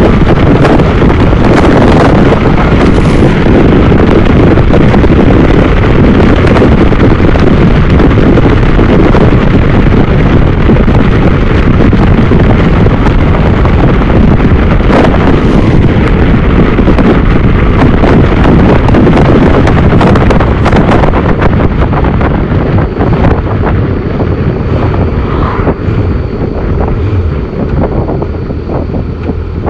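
Heavy wind buffeting on the phone's microphone of a moving motorcycle, with the Honda CBF1000's inline-four engine and road noise underneath. The wind eases over the last several seconds, and the engine comes through as a steady low hum.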